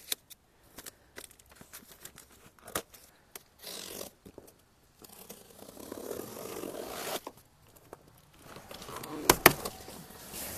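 Plastic stretch wrap and packing tape being cut and torn off a cardboard box, with plastic crinkling and scratchy tearing in stretches. Near the end come two sharp knocks as the cardboard flaps are pulled open, the loudest sounds here.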